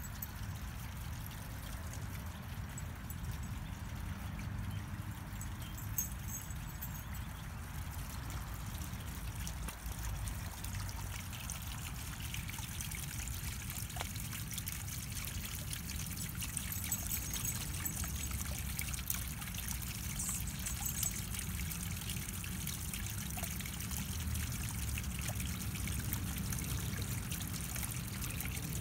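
Small garden pond waterfall: water spilling from a spout into the pond, trickling steadily.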